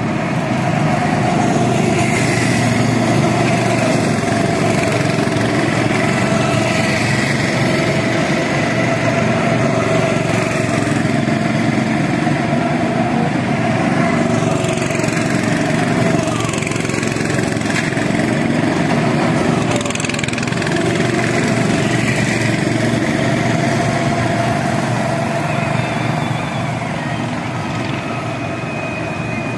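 Several go-kart engines running as karts drive along the track, a steady engine drone that swells and eases gently as karts come close and move off, easing a little near the end.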